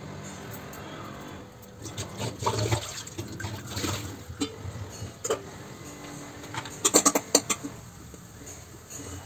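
Water running from a kitchen tap, with clinks of metal pots and utensils; a quick run of sharp metallic clinks about seven seconds in.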